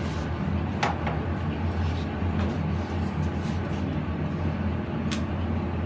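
A knife cuts raw chicken on a cutting board, with two sharp knocks of the blade on the board, one about a second in and one near the end. Under it runs a steady low machine hum.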